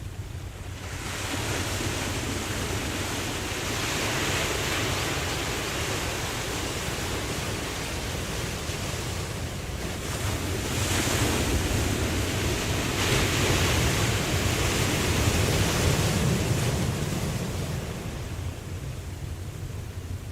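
Ocean waves breaking and washing in, a steady hiss of surf that swells and eases every few seconds, with a low wind rumble on the microphone.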